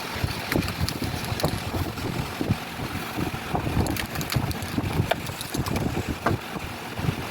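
Wind buffeting the microphone: irregular low rumbles over a steady hiss.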